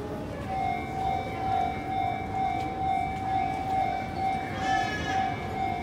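An electronic warning tone beeping steadily, about two pulses a second. A short higher-pitched sound joins it briefly a little past the middle.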